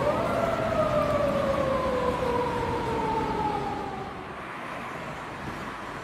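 Japanese police car siren in a slow wail: the tone climbs to its peak, then falls slowly and fades out about four seconds in, leaving the noise of road traffic.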